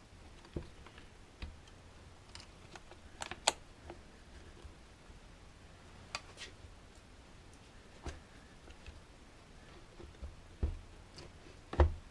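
Scattered light clicks and taps of small plastic and metal parts being handled and fitted on a Shindaiwa 300S chainsaw's carburetor and choke linkage. The sharpest click comes about three and a half seconds in, and there are two duller knocks near the end.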